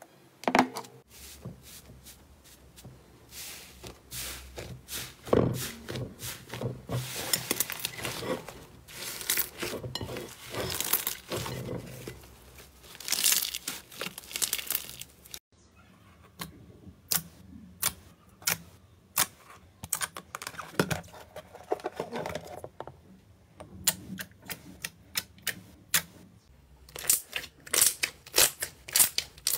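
Hands squishing and stretching slime, full of wet crackles, clicks and pops. About halfway through the sound breaks off and changes, and the second part is sparser, with crisp clicks that come thicker near the end.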